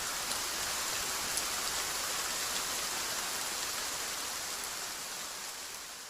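Steady hiss of falling water, like rain or a running tap, fading out near the end.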